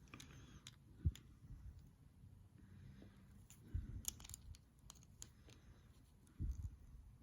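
Faint scattered clicks and a few soft knocks: small die-cast car parts and tools being handled. The knocks come about a second in, near the middle and near the end, with a quick cluster of clicks in between.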